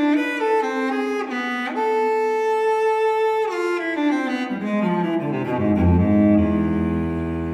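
Background music of bowed strings: a slow melody holds a high note, then sinks into low, sustained cello and double-bass notes in the second half.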